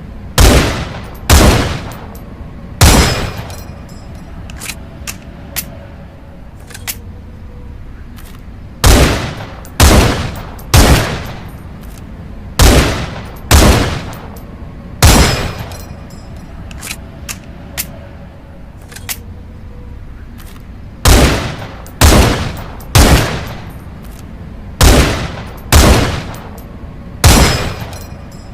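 M182 Pierre rifle firing in groups of three shots about a second apart, each shot with a short ringing tail, fifteen shots in all. Quieter mechanical clicks come in two of the pauses between groups.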